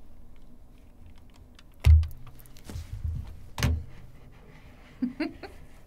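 Two loud, dull thumps about a second and a half apart, with faint clicks and rustling between them: handling noise at a desk close to the microphone.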